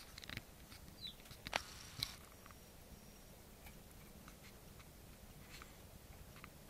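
Eurasian tree sparrows at a feeding spot: faint scattered clicks and taps, with one short high chirp about a second in.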